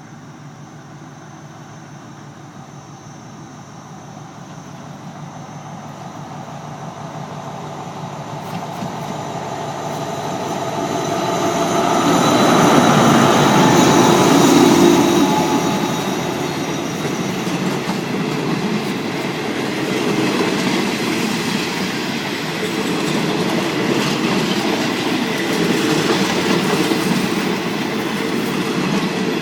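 Diesel-electric locomotive 4138 with its train of coaches: it draws nearer, growing steadily louder to a peak about halfway through. The coaches then keep rolling past, their wheels clicking over the rail joints.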